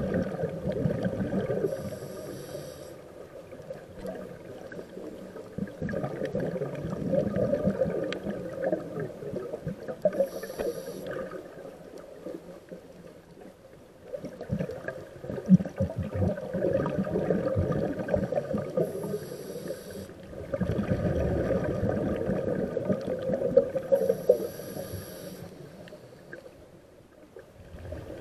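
Scuba diver breathing through a regulator underwater: long gurgling rushes of exhaled bubbles, each followed by a short hiss of inhalation, four breaths in all.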